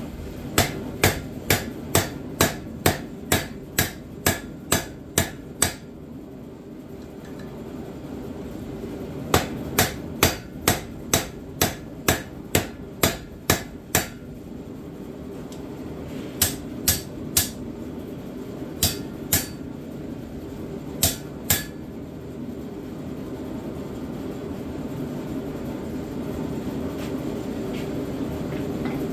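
Blacksmith's hand hammer striking hot steel on an anvil, forging a pipe tomahawk from a black powder rifle barrel: a run of about a dozen sharp blows about two a second, a pause, a second run of about ten, then short groups of three, two and two, before the hammering stops. A steady low rushing noise runs underneath and grows louder toward the end.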